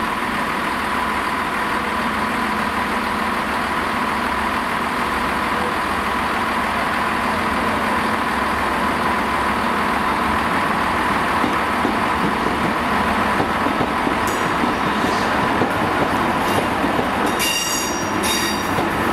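Class 66 diesel-electric locomotive's engine running steadily as it hauls a heavy freight train slowly past, the wagons rolling behind it and growing slightly louder as it nears. Brief high-pitched wheel squeals near the end.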